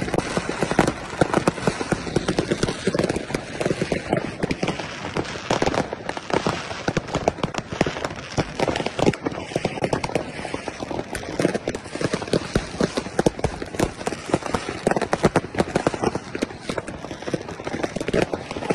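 Fireworks and firecrackers going off continuously: a dense, irregular crackle of many rapid overlapping bangs, with louder single reports from bursting aerial shells.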